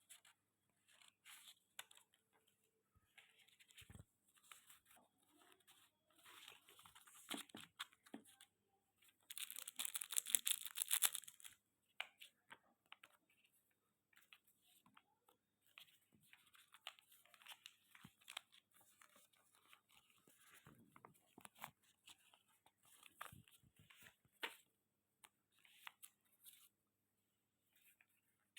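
Quiet rustling and crinkling of paper and packaging being handled, with one louder tearing sound lasting about two seconds a third of the way through.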